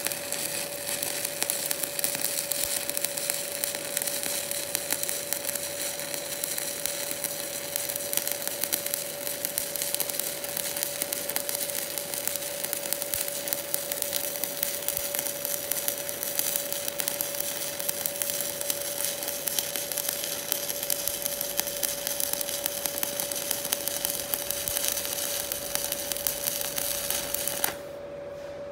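Stick (shielded metal arc) welding with a 7016 low-hydrogen electrode at about 115 amps: a steady crackling arc that cuts off suddenly near the end when the arc is broken.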